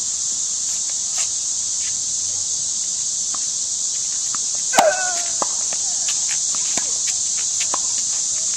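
Steady high-pitched insect chorus, with tennis balls being struck and bouncing on a hard court as scattered sharp knocks. The loudest knock comes about five seconds in, with a brief squeak.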